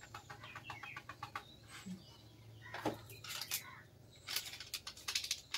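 Plastic spice packets crinkling and crackling in quick runs, mostly in the second half, as coriander powder is shaken out and the next packet is handled. A short chirp-like call comes about three seconds in.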